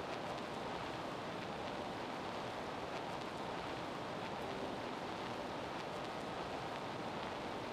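Steady gymnasium room noise: an even hiss with no distinct sounds standing out.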